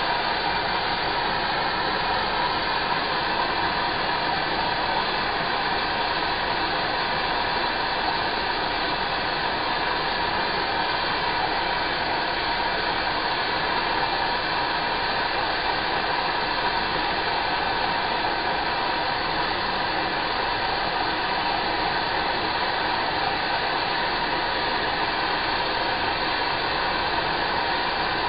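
Steady hiss of a handheld gas torch burning, its flame heating copper spark-plug gaskets to anneal them.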